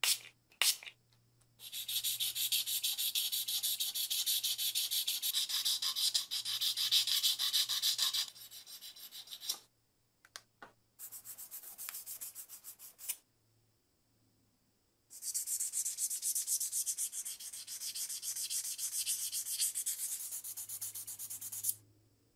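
P500 abrasive sponge rubbed by hand over a metal lighter case: quick back-and-forth sanding strokes in three bouts with short pauses between, and a couple of light knocks at the start.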